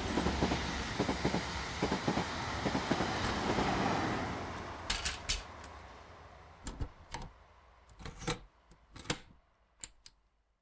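A rushing noise with a rattle of small clicks swells and then fades away. Through the second half come a string of sharp, separate mechanical clicks, some close together in pairs.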